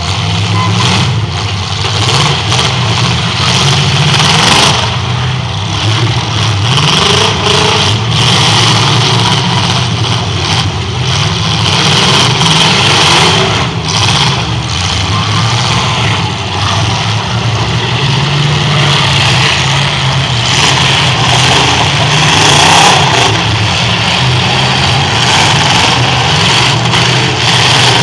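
Several demolition-derby cars with eight-cylinder engines running and revving hard together, with repeated crunching crashes as they ram each other.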